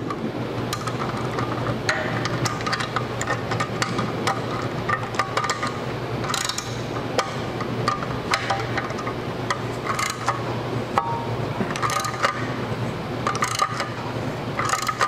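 Hand socket ratchet clicking through repeated strokes, winding a bolt through a homemade rivnut setting tool to crush a 5/16-inch steel rivnut.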